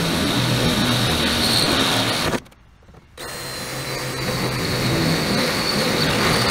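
Handheld electric power tool running on sheet steel with a steady whine. It cuts off abruptly about two seconds in, starts again a second later and runs on until it stops at the end.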